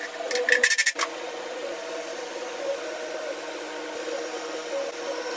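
A quick run of ratchet-like clicks from a hand tool for about half a second, then a steady mechanical hum with a constant tone.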